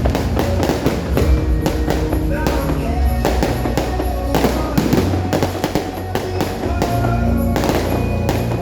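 Fireworks going off in quick succession: rapid, repeated sharp bangs with music playing alongside.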